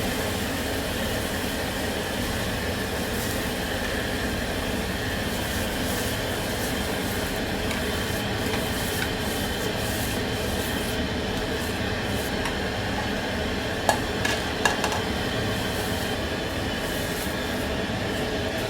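Steady roar of a commercial kitchen, typical of a range hood exhaust fan and gas wok burners running, with a few short metal clinks about fourteen seconds in.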